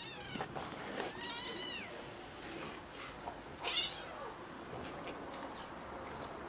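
Kitten meowing in short, high-pitched cries, about three of them, while play-fighting with a French bulldog; the loudest cry comes a little under four seconds in.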